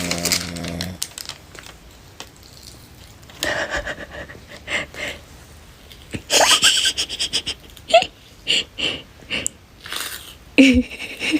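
A man snoring in irregular bursts: a low droning snore at first, then loud snorts and wheezing breaths with pauses between them, one rising in pitch.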